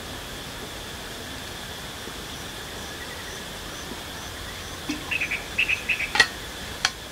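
Steady insect buzz, with faint chirps repeating a few times a second in the middle. Near the end a run of small clinks and two sharp clicks as a stainless steel flask is handled and closed.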